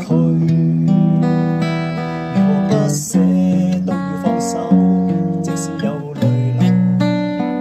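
Steel-string acoustic guitar played fingerstyle: plucked chord notes ring on into one another, with a new pluck or chord change about every second.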